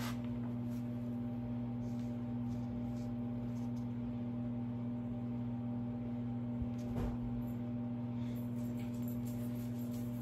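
Steady low electrical hum, with faint scattered ticks and rustles of paper and thin wood sheets being handled, and a soft knock about seven seconds in.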